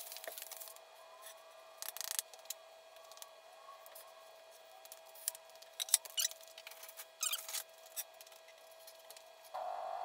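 Faint, scattered scrapes, rustles and clicks of work with tools and lumber on a concrete floor, over a faint steady hum. Near the end a louder steady hiss comes in.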